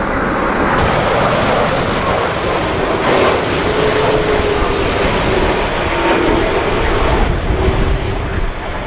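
Boeing 787-9 on final approach, its jet engines running with a steady rumble and a faint whining tone that wavers through the middle. Strong gusty crosswind blows hard on the microphone.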